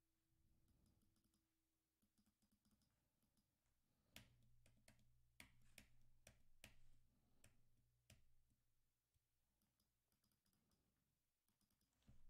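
Faint, sparse clicks of computer controls over near silence. About eight sharp clicks come in a cluster from about four to eight seconds in, with a few fainter ticks before and after.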